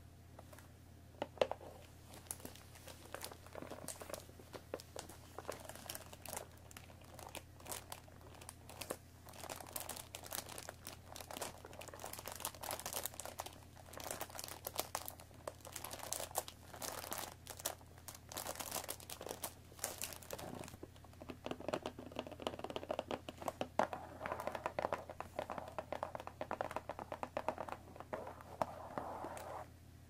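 Long fingernails tapping and scratching on a plastic-wrapped cardboard tea box: a quick run of crisp clicks and crinkling. In the last third it turns into a denser, steadier scratching.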